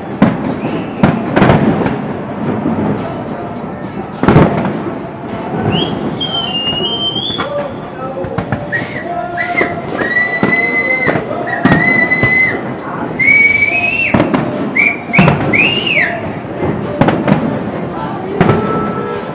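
Fireworks display: shells bursting in sharp bangs, the loudest about four seconds in and again near the fifteen-second mark, with whistling tones in the middle stretch. Music and voices carry on underneath.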